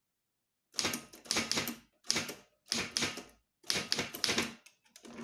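Manual typewriter being typed on: after a short pause, runs of sharp key strikes in quick clusters, the type bars clacking against the platen.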